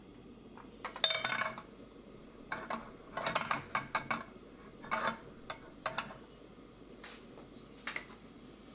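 Frying pan set down and shifted on the metal pan supports of a portable gas cassette stove: two bursts of clinking, scraping clatter, then a few lighter single knocks.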